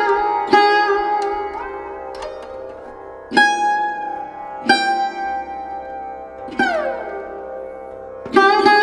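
Background music: a plucked string instrument playing slow single notes that ring and fade, with a few notes bent in pitch and one sliding clearly downward about two-thirds of the way through.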